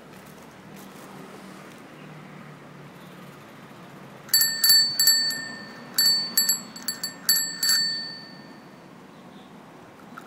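Bicycle bell rung about four seconds in, a dozen or so quick dings in short clusters, each one ringing on briefly, over faint steady background noise.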